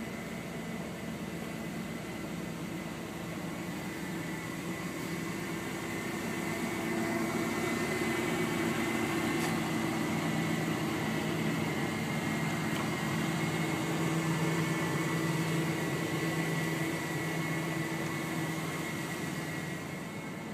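A steady mechanical hum with several held tones, growing a little louder about a third of the way in and easing off near the end.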